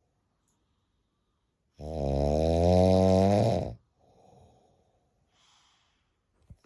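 A person snoring loudly with a sawing, buzzing sound. One long snore of about two seconds comes a couple of seconds in, followed by faint breaths, and the next snore starts right at the end.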